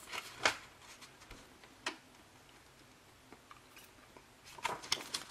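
Light handling noise from a Blu-ray steelbook case and its paper digital-code insert being taken out: a few faint clicks and rustles early on, a quiet stretch, then a cluster of clicks near the end.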